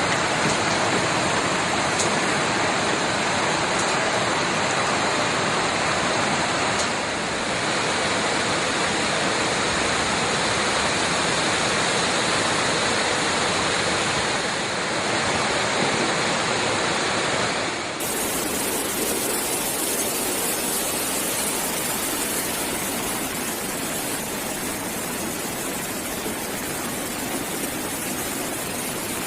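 Floodwater rushing in a steady torrent. About eighteen seconds in there is a cut to another recording of rushing water, a little quieter and with more hiss.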